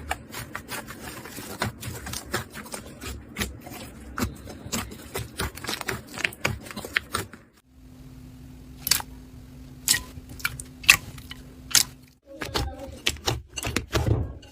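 Slime being squeezed and worked by hand, giving rapid, irregular crackling clicks and pops, typical of crunchy slime. About halfway through, the crackling stops for a few seconds, leaving a faint steady hum and a handful of sharp single snaps. Then the dense crackling starts again.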